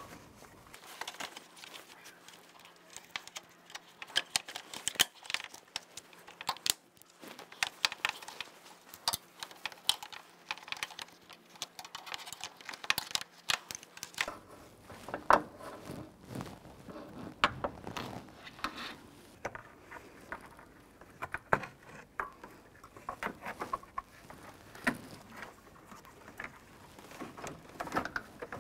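Plastic air diverters being worked into place beside a car's radiator and A/C condenser by gloved hands: scattered clicks, taps and rustles.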